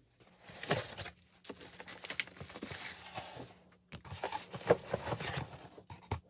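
Rustling and crinkling of a cardboard box, paper and plastic wrap as a boxed battery is unpacked and its manual and cables are lifted out, with a few light knocks and a short break about four seconds in.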